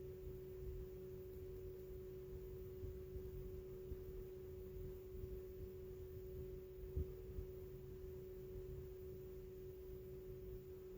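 Electric actuator motor of a Sporlan MTW9 modulating three-way valve running as it drives the pistons closed: a faint, steady hum at one pitch, with one light knock about seven seconds in.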